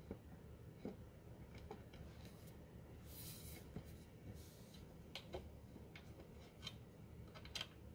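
Faint, scattered light metal clicks of a hex key turning a screw into a wooden stool leg and being reseated in the screw head, more frequent in the second half, with a brief rustle about three seconds in.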